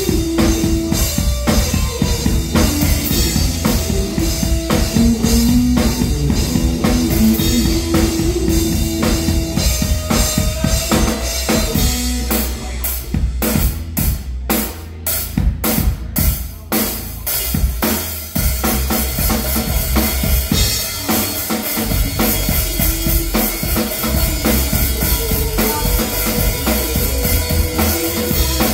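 Live band playing, with the drum kit up front: bass drum, snare and cymbals driving a steady beat, and a melodic guitar line over it in the first half. About halfway through the music thins to a run of separate heavy drum hits for a few seconds, then the full band comes back in.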